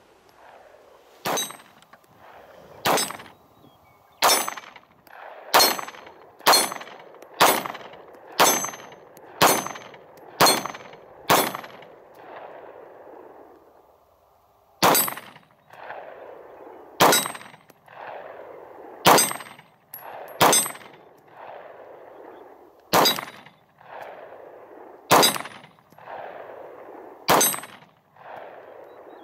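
Canik TP9 9mm pistol fired in a steady string of about seventeen shots, one to two seconds apart with a pause of about three seconds near the middle. Each shot is followed by a short ringing tail, the clang of a steel target being hit.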